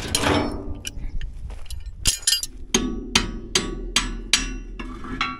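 Steel hand tools clatter as they are picked up off a diamond-plate deck. Then a hammer strikes the steel of a broken plow part about seven times, roughly two and a half blows a second, each blow ringing, knocking the broken piece out.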